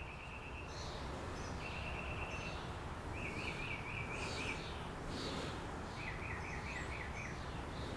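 A bird singing repeated short trilled phrases over steady background noise.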